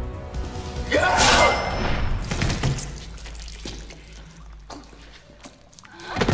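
A loud cry with a crash about a second in, then scattered thuds and knocks, and another cry near the end, as the music fades out.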